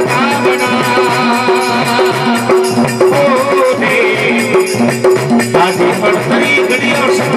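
Live devotional folk music: a harmonium playing over a steady beat, with shaken rattle-like percussion.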